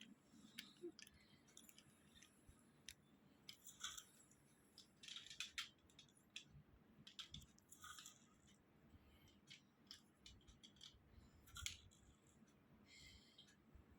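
A sleeping man snoring faintly, with a short breathy snore about every four seconds and small clicks in between.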